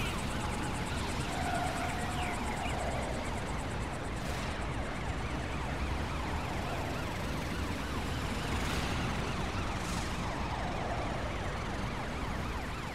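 Emergency vehicle sirens wailing over a steady dense noise of vehicles on the move, as a cartoon sound effect.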